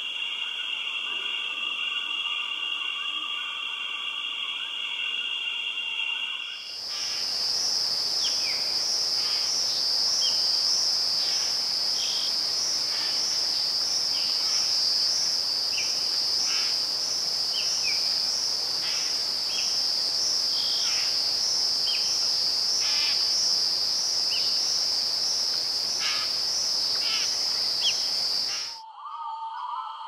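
Insect chorus: a steady high trilling at first, then, after an abrupt change about seven seconds in, a louder high buzz that pulses evenly, with short falling chirps scattered through it. It cuts off shortly before the end.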